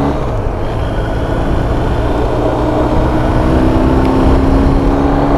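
BMW R 1250 RT's boxer-twin engine running at road speed, with heavy wind rush buffeting the microphone. Its note climbs slowly from about a second in as the bike gathers speed.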